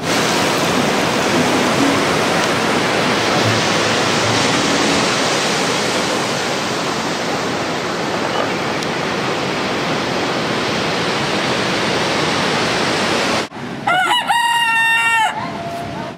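Steady rush of breaking surf, which cuts off abruptly; then a rooster crows once, a long call lasting over a second.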